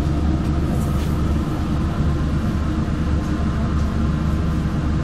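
Steady low hum and rush of a laboratory fume hood's extraction fan.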